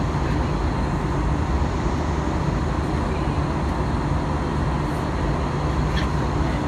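Steady low rumble of engine and airflow noise inside the cabin of an Airbus A321-200 climbing out after takeoff.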